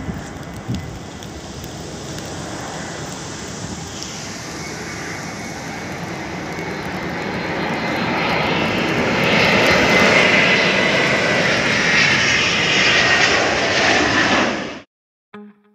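Jet airliner flying low overhead, its engine noise building to a loud peak in the last few seconds with a high whine over the rumble. The sound cuts off suddenly near the end.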